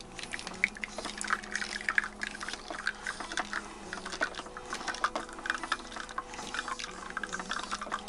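Wacaco Nanopresso portable espresso maker being hand-pumped, its piston strokes giving repeated short clicks several times a second, while espresso trickles and drips into a glass cup.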